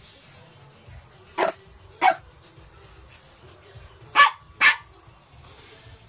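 A dog barking: four short barks in two pairs, the first pair about a second and a half in, the second about four seconds in.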